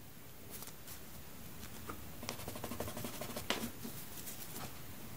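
Faint room tone with a few soft clicks and scratches from a pencil and sketchbook paper being handled.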